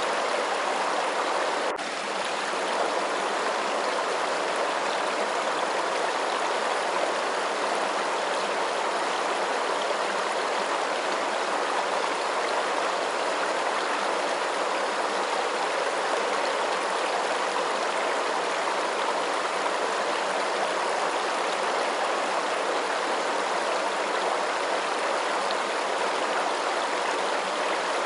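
Running water, a steady even rush with no breaks, with a faint click and brief dip in level about two seconds in.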